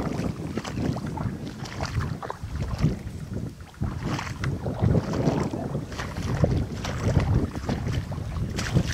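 Wind buffeting the microphone in uneven gusts, with scattered short rustles and clicks on top.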